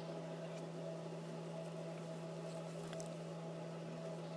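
Steady low hum with a faint hiss of background noise, and a faint tick about three seconds in.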